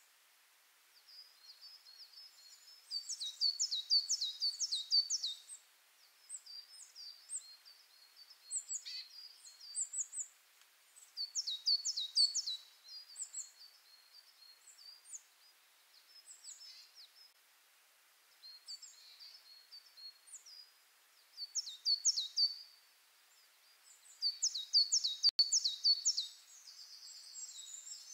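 Birdsong: high chirps and rapid runs of quick notes, with louder bursts every several seconds and scattered single calls between them.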